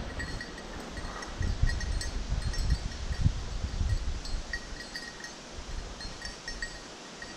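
Small bell on a hunting dog's collar tinkling irregularly as the Brittany spaniel runs through the grass, over low wind rumble and thumps on the microphone.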